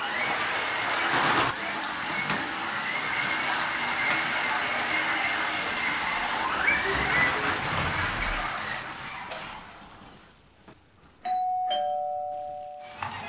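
A small toy robot's drive motor whirring steadily as it rolls, with a faint whine that rises briefly about two-thirds of the way through before fading out. Near the end, a two-tone ding-dong doorbell chime, a higher note followed by a lower one.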